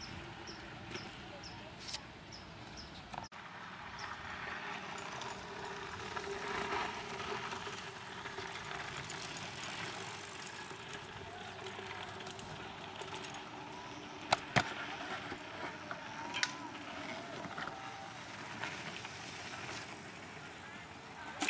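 Mountain bikes riding past on a dirt trail, tyres crunching over loose dirt and gravel. Two sharp clicks come about two-thirds of the way through.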